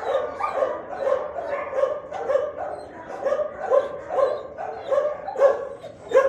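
A dog in an animal-shelter kennel barking steadily, about two barks a second.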